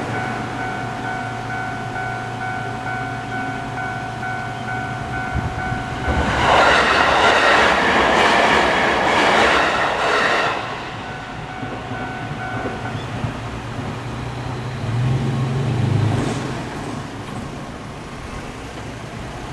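Japanese level crossing's electronic alarm ringing in its standard pulsing tone while a JR Kawagoe Line train passes through for about four seconds with wheel clatter, the loudest sound. The alarm stops a couple of seconds after the train has gone, and a brief low hum follows near the end.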